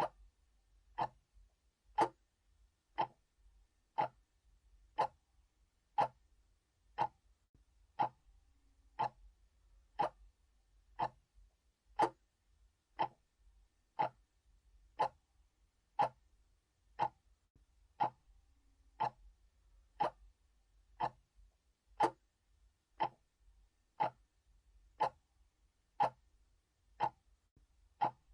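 Analog clock ticking, one sharp tick a second, every other tick a little louder in a steady tick-tock.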